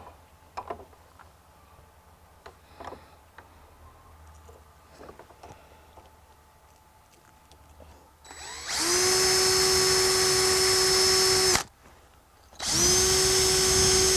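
Power drill running in two bursts of about three seconds each, a steady motor whine that spins up as it starts, after some light clicks of handling. It is drilling pilot holes into brick for a gate latch catch.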